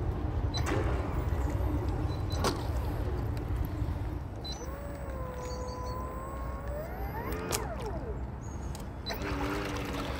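Traxxas Disruptor RC boat's electric drive giving a squeaky, trolleybus-like whine, which is normal for it, as it is run at low throttle in the shallows. The pitch glides up and holds, then rises sharply and drops back about seven and a half seconds in. Two sharp knocks come about one and two and a half seconds in.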